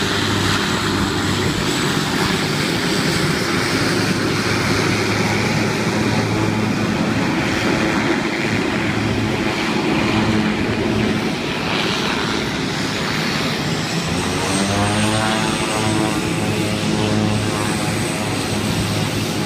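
Propeller aircraft engines running steadily on the airfield, with a shift in engine pitch about three-quarters of the way through.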